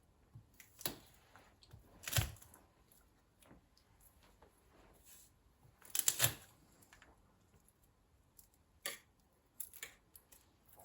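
Scattered knocks and clicks of kitchen utensils and ingredients being handled during food prep, with a heavier thud about two seconds in and a quick double knock about six seconds in.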